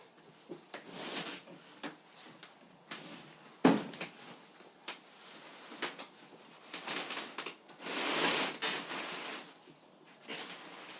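Packaging being pulled out of a cardboard box, with rustling and scraping swells about a second in and again around eight seconds in, scattered small clicks, and one sharp knock a little under four seconds in.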